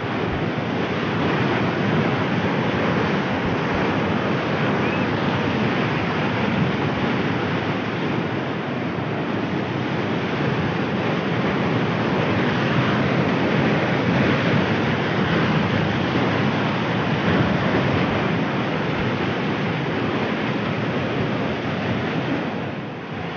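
Water released from a dam rushing and churning through a concrete spillway channel: a loud, steady rush of white water, easing slightly near the end.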